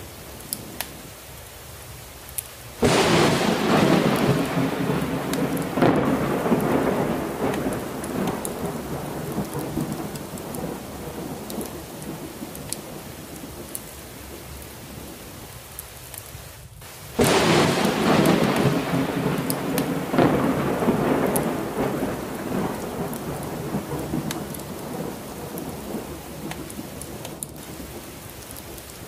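Steady heavy rain with two claps of thunder, one about three seconds in and one about seventeen seconds in, each breaking suddenly and then rumbling away over several seconds.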